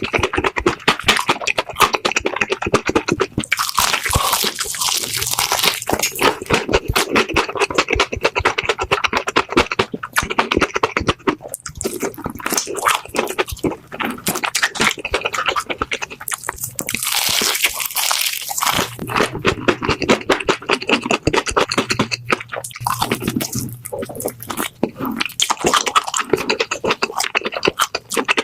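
Close-miked biting and chewing of crispy fried chicken: dense crackling crunches of the fried batter, with louder bouts of crunching about four seconds in and again around seventeen seconds in.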